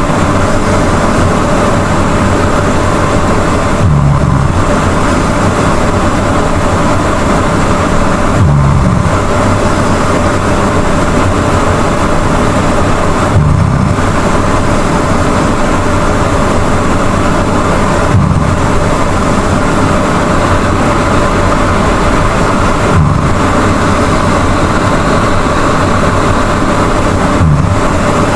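A person snoring loudly, a low snore about every four and a half seconds, over a steady hiss.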